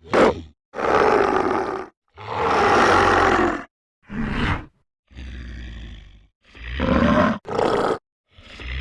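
Demon growl sound effects: a string of about seven short, rough monstrous growls and roars, each lasting under two seconds and separated by brief silences, with a quieter one in the middle.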